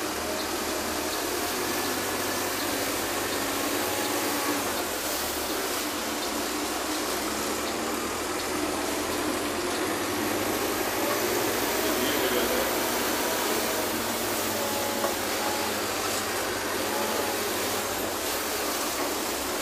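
Heard from inside a city bus, heavy rain and floodwater make a steady rushing noise as the bus drives through flooded streets, with the bus engine running underneath.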